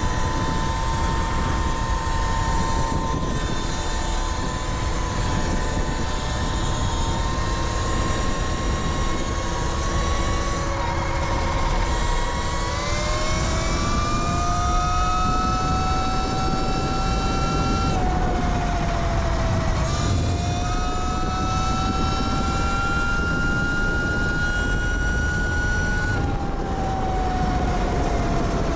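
Sur-Ron Light Bee electric dirt bike with an aftermarket eBMX motor under way at speed. The motor's whine climbs in pitch as it accelerates, dips briefly about eighteen seconds in and climbs again, then falls away a few seconds from the end. Underneath runs a steady rush of wind and road noise.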